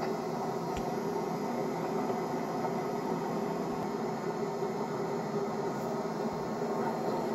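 Steady hiss and low hum of an old camcorder home-video soundtrack, with no distinct event apart from a faint click about a second in.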